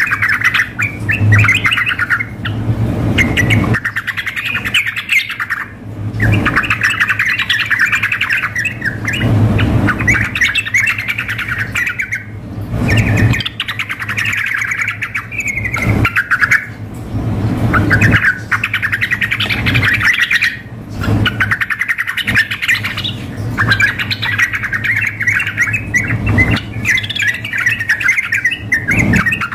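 Yellow-vented bulbuls (trucukan) singing: long bursts of fast, bubbly chattering phrases, one after another with short pauses, from a male in full song mixed with another bird calling. A steady low hum runs underneath.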